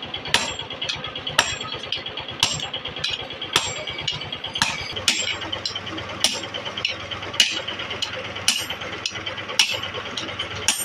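Sledgehammer blows struck in a steady rhythm, about two a second, onto a hatchet head held in tongs on an anvil. A steady engine-like hum runs underneath.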